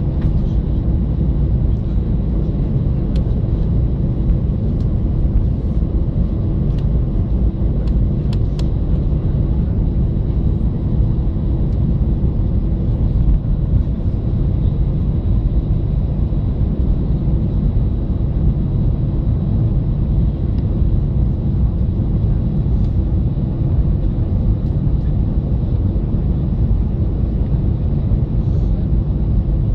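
Cabin noise of an Airbus A320 taxiing: a steady, loud low rumble of its CFM56-5A1 turbofan engines at low taxi power, with a steady hum running through it.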